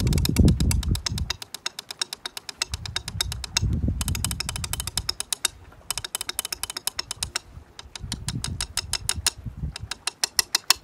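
Wooden drumsticks played fast on glacier ice: quick runs of sharp, hard clicks, about ten strokes a second, broken by short pauses. Patches of low rumble come and go underneath.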